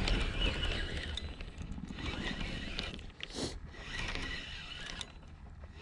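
Spinning reel being cranked by hand, winding line back in with a fast, fine ticking from its rotor and gears.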